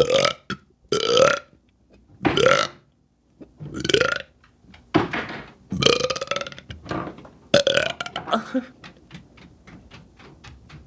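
A woman burping over and over: about seven long belches in a row, roughly a second apart, several rising in pitch as they start.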